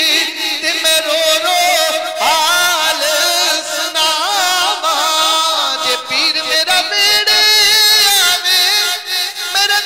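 Male voice singing a Punjabi Sufi manqabat in drawn-out, ornamented notes, the pitch sliding and wavering with no clear words.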